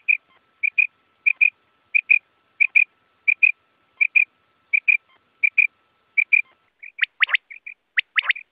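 Common quail calling: a quick two-note call repeated about every 0.7 seconds, then near the end two louder three-note calls.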